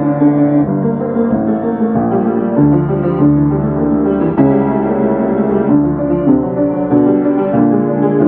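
Piano playing a fast passage of rapidly repeated notes and chords.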